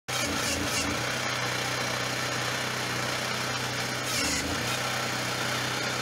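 Engine of a homemade backhoe digger running steadily, its note changing briefly about four seconds in.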